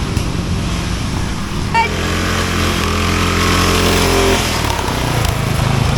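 Racing lawn mower engines running hard, one revving up in pitch for a couple of seconds and then dropping off. A short, sharp high-pitched blip just under two seconds in.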